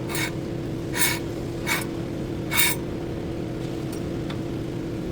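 Front brakes of a Nissan Altima scraping in four short rasping bursts, under a steady low hum. This is the brake noise that fitting new front brake pads cures.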